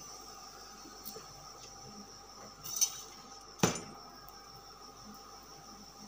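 Metal kitchen utensils clinking: a bright clink and then a sharp knock, under a second apart, a little past the middle, over a steady low background.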